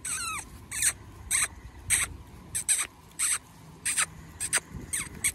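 A hand scratching and rubbing a Gir cow's forehead hair, giving short, rasping strokes about twice a second.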